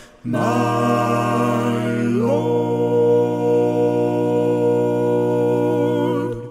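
A cappella gospel vocal quartet holding the closing chord of the song: a sustained chord that moves up to a new chord about two seconds in, then releases near the end.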